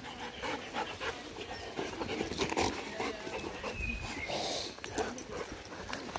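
Two dogs panting while they play, a shaggy herding dog and a black Labrador-type dog.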